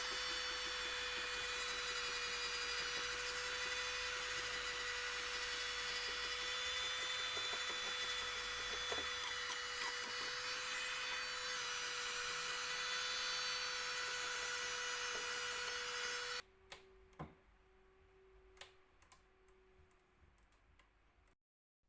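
A small electric power tool running steadily with a hum and whine, cutting off abruptly about sixteen seconds in; after it, faint clicks and light handling noises.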